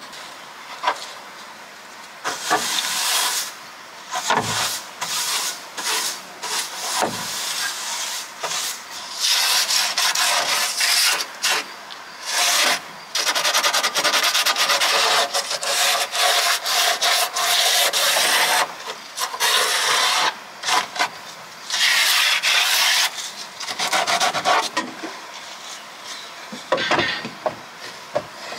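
Abrasive rubbing and scraping on wood in uneven stretches of strokes, with pauses between them and a few sharp knocks.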